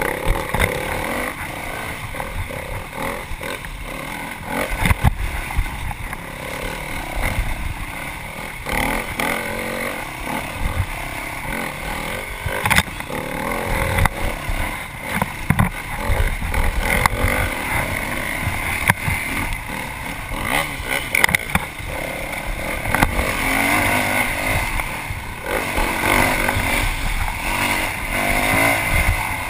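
Yamaha WR450F dirt bike's single-cylinder four-stroke engine, ridden hard off-road, its revs rising and falling with throttle and gear changes. Frequent sharp knocks and clatter come from the bike over rough ground.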